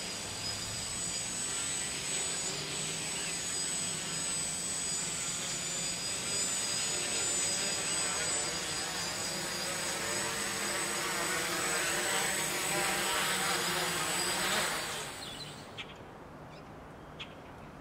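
Camera quadcopter's electric motors and propellers whirring steadily, the pitch wavering as it flies low and comes in to land. The whir grows a little louder, then cuts off suddenly about fifteen seconds in as the motors are shut down after landing, leaving a few faint clicks.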